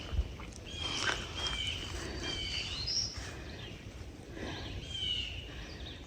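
Songbird singing in woodland: short whistled notes repeated several times, with a higher, rising note about three seconds in.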